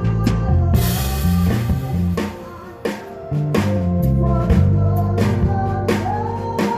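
A live band playing during a sound check, with a bass line and drum kit hits under held higher notes. The music drops away briefly a little after two seconds in, then comes back in full.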